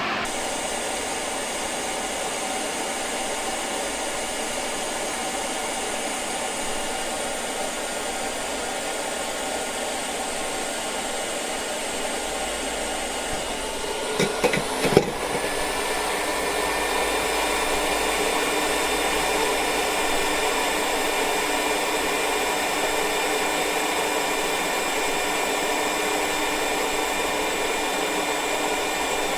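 A small electric blower running steadily with a whirring hiss. Its tone shifts slightly after a few clicks about halfway through.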